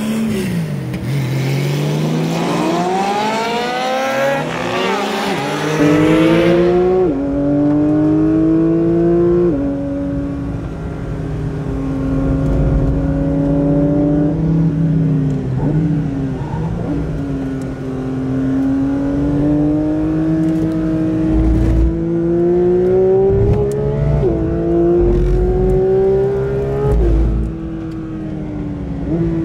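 Car engine being driven hard on a track lap, its pitch climbing under acceleration and dropping sharply at each of several gear changes, with rushing wind and road noise during the first hard pull.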